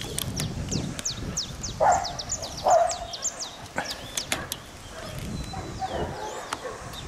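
A dog barks twice, about two seconds in, over many quick high chirps from small birds. A few light clicks come from a hand pop-rivet tool being squeezed.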